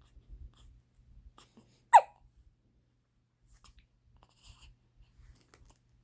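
A baby hiccups once, a short sharp sound about two seconds in, with faint breathing and small soft sounds around it.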